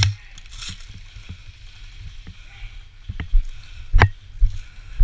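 Footsteps of a person running over a leaf-littered woodland floor, with gear rattling: a sharp knock at the start, then from about three seconds in short thumps and crunches about two a second.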